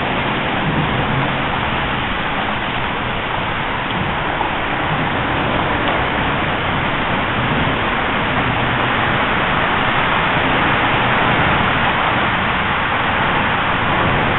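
Steady roar of highway traffic crossing the MoPac bridge, an even hiss of tyres and engines with no breaks.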